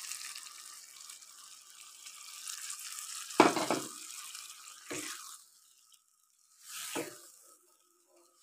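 Water poured into a hot pan of meat frying in spice masala, with a hissing sizzle that dies down over the first couple of seconds. Then a wooden spatula stirs the thinned curry, scraping the pan three times.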